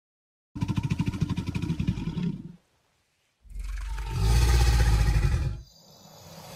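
The animal sound of Google's 3D AR American alligator: a rough, rapidly pulsing growl for about two seconds, then after a short pause a louder, deeper bellow that cuts off near the end.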